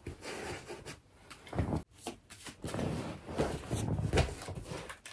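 Tarot cards being handled and shuffled: irregular rustling with a few soft knocks.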